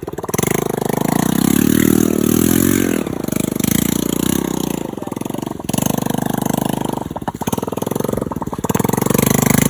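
Motorcycle engine running with no muffler on its exhaust, revving up and down: loud, with the revs climbing about a second in and again near the end.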